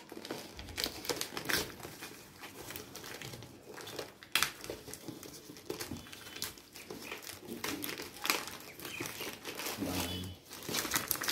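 Crinkling and crackling of a plastic courier mailer bag as fingers pick at it, then tear it open by hand about ten seconds in.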